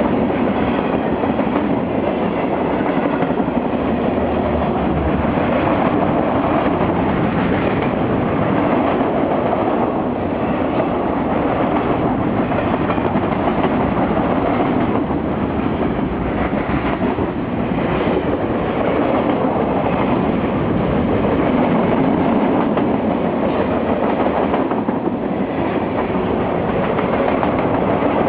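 Mixed freight train's cars rolling past, a steady loud rumble and clatter of steel wheels on the rails.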